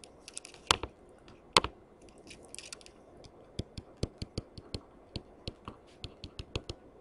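Faint stylus clicks and taps on a tablet while handwriting a note: two sharper clicks about a second in, then a run of quick light taps, several a second, in the second half.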